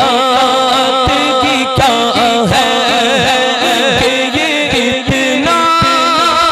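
A man singing a naat (Urdu devotional poem) into a microphone, holding long, wavering notes with ornamented turns and no words clearly sung through.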